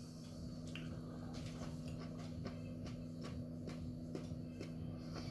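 Faint chewing of soft, slimy defrosted Carolina Reaper peppers: irregular wet mouth clicks and squelches, several a second. A steady low electrical hum runs underneath.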